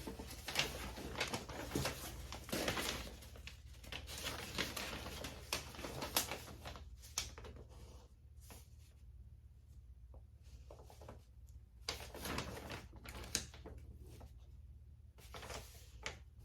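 Handling of a cosmetic product and its packaging: irregular rustling with scattered clicks and taps, busier in the first several seconds, dying down, then picking up again near the end.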